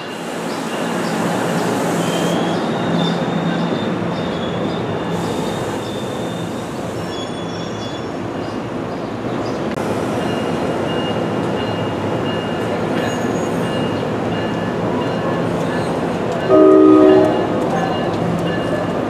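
NJ Transit multilevel commuter train at a station platform, running with a steady rumble and two spells of hiss. Near the end, a short, loud train horn blast sounds once.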